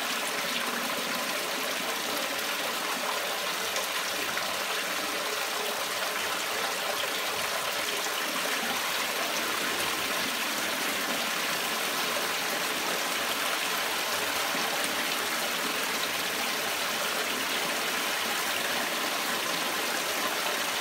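Water gushing steadily from the perforated inlet pipe of a homemade fleece drum filter and splashing onto the fleece, with the ball valve fully open and the pump at full power.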